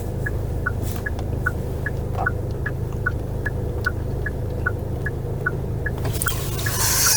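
Steady low rumble of a taxi cabin on the move, with the turn-signal indicator ticking about two and a half times a second. A hiss swells near the end.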